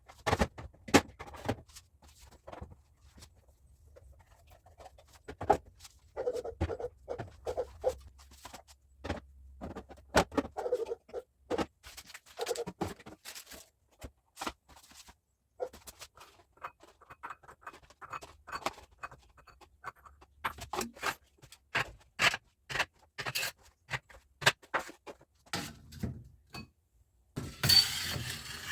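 Irregular knocks, clicks and scrapes of containers and grocery items being handled and set down, with a brief louder rustling near the end.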